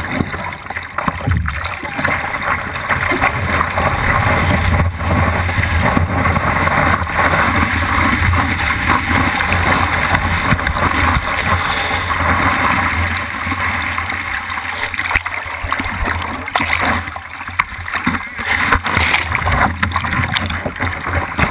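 Rushing whitewater hissing and splashing against the nose of a surfboard as it rides a broken wave, heard from a camera mounted on the board. The rush is steady for the first dozen seconds or so, then comes and goes in surges.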